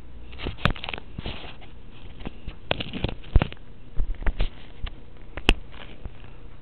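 Fingers handling a small camera right at its microphone: irregular clicks, taps and short rustles as it is gripped and lifted, with two sharper knocks about halfway through and near the end.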